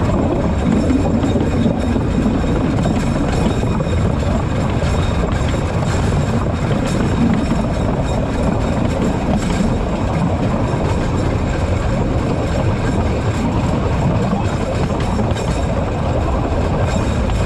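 Alishan Forest Railway train running along its narrow-gauge track: a steady rumble of wheels and running gear with no clear beat.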